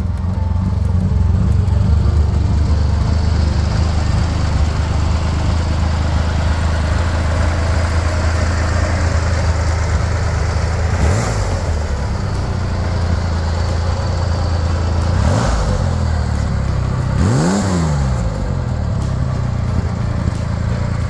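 The air-cooled 164 cubic-inch Turbo-Air flat-six of a 1966 Chevrolet Corvair idles steadily. In the second half it is revved three times, quick blips that rise and fall in pitch, the last the biggest.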